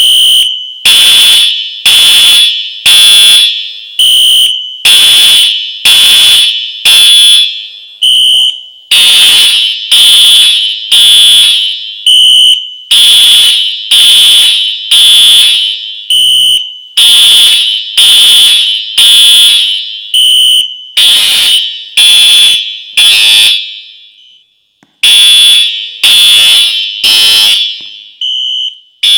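Classroom fire alarm sounding in loud, shrill, evenly repeated blasts, about one and a half a second, with one short break near the end.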